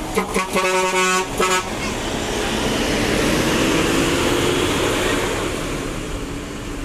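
Coach bus horn sounding a short run of notes for about a second and a half, then the engine and air noise of the coach pulling away close by, with a faint rising tone as it speeds up.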